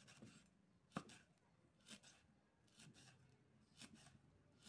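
A knife chopping shredded coconut husk on a wooden plank: faint cutting strokes about once a second, the one about a second in the loudest.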